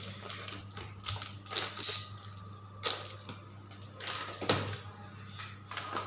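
Plastic storage boxes and food packets being moved about on refrigerator shelves: irregular clicks and knocks of plastic on the shelves, roughly one a second, over a steady low hum.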